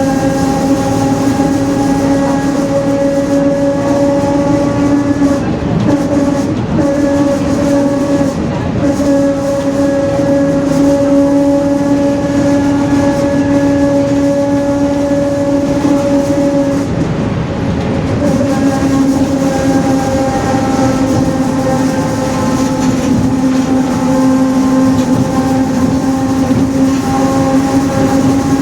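Rear differential of a Mercedes-Benz OF-1721 bus howling very loudly as the bus drives: a steady whine with several overtones that fades for a moment just past halfway and then comes back.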